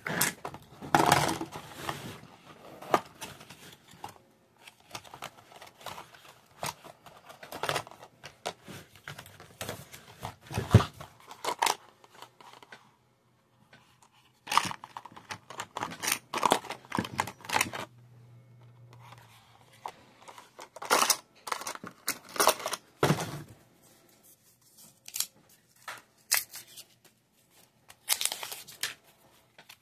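Hands handling the cardboard box, trays, plastic chips, dice and wrapped card decks of a card game: scattered clicks, knocks, scrapes and paper-and-cardboard rustling, with short pauses.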